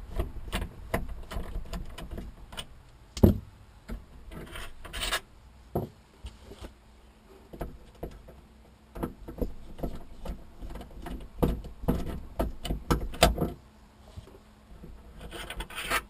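Star-drive (Torx) screwdriver backing out the perimeter screws of a Chevy Avalanche tailgate's inner casing: irregular clicks and ticks with metal rubbing and scraping, and one sharp knock about three seconds in.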